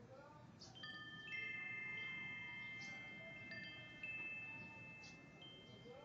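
Wind chime ringing faintly: several clear, high metal notes struck at separate moments from about a second in, each ringing on for seconds and overlapping.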